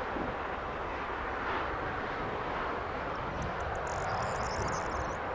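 Steady jet noise from a four-engine Boeing 747 freighter climbing out after take-off. A high chirping comes in about three and a half seconds in.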